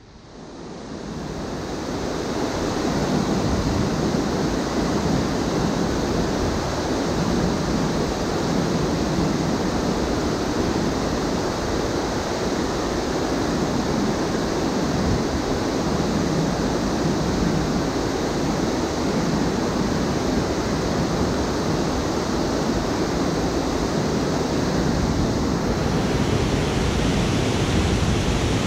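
Steady rush of river water pouring over a low-head dam spillway and running through the rocks, close to the microphone. It fades in over the first few seconds and then holds level.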